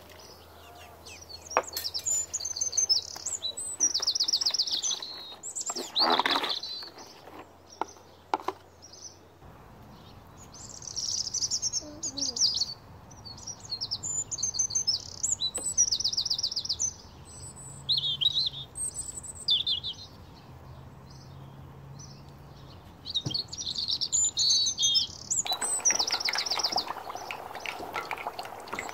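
Small songbirds chirping and trilling in short high-pitched bursts. Near the end a steady sizzle joins them as battered fish fries in a pot of hot oil.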